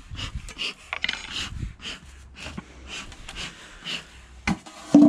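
Short breathy puffs from a bee smoker's bellows, mixed with rubbing and scraping as the hive lid is levered up and lifted off, with a knock near the end.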